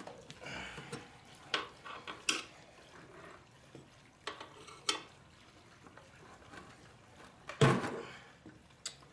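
Metal tire irons clinking and scraping against a motorcycle wheel rim while the last of a tire's bead is levered on, with scattered sharp clicks and one louder knock near the end.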